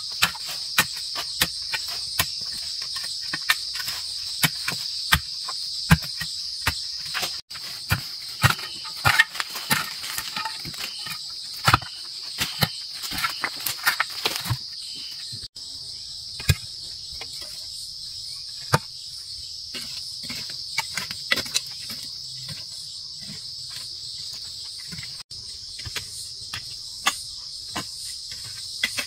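A steady, high-pitched insect chorus, with irregular sharp knocks and clicks over it that come thickest in the first half.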